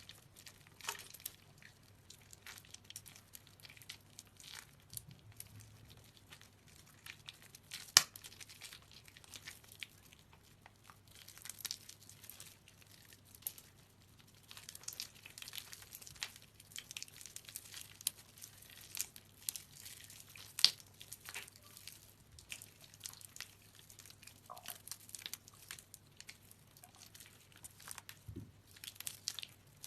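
Soaked soap being squeezed and crushed by hand: a faint, irregular run of wet crackling and squishing, with two sharper snaps, one about eight seconds in and one about twenty seconds in.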